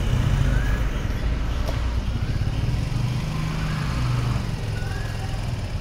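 A motor vehicle's engine running steadily at low speed, a continuous low rumble, with a few short high whistling tones over it.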